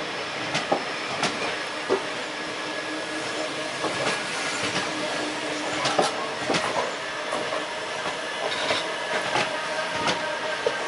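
Indian Railways express coaches rolling past on the adjacent track: a steady rumble of wheels on rail with irregular sharp clacks as the bogies cross rail joints, and a thin steady whine running under it.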